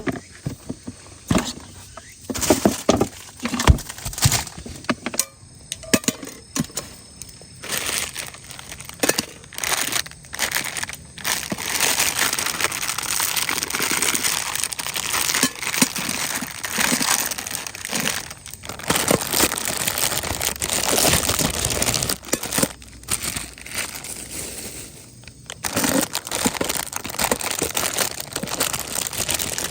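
Crinkling and rustling with scattered clicks and knocks, then a dense steady hiss from about eight seconds in, with brief breaks around nineteen and twenty-five seconds.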